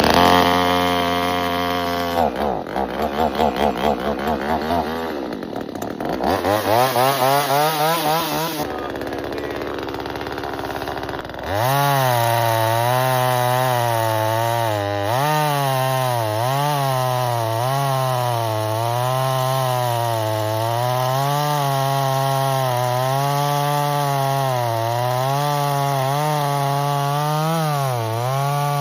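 Small two-stroke gas chainsaw, fired from cold on the first pull with the choke on, running and revving in short pulses. From about twelve seconds in it runs steadily at speed, its pitch sagging and recovering repeatedly, as when cutting wood.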